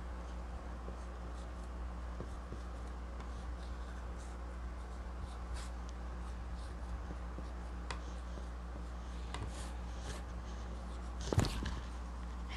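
Dry-erase marker writing on a small whiteboard: faint, scattered strokes over a steady low hum. A sharp click comes near the end.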